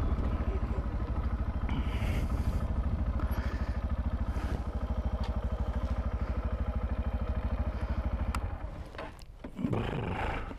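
Macbor Montana XR1 125cc trail bike's single-cylinder four-stroke engine idling with an even, steady beat, then shut off about eight seconds in. A brief rustle follows near the end.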